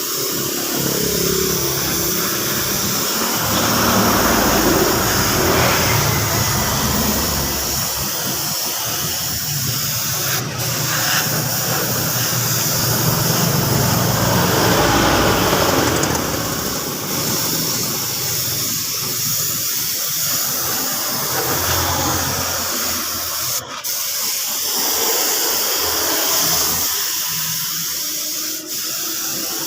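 Compressed-air paint spray gun hissing over a running motor, with a few very short breaks, as the repaired motorcycle fuel tank is spray-painted.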